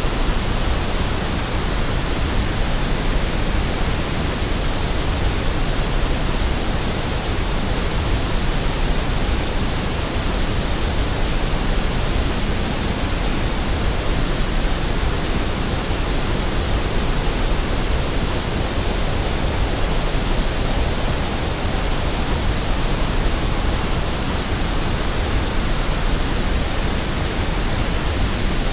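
Steady white noise: a continuous, even hiss across the whole range that does not change.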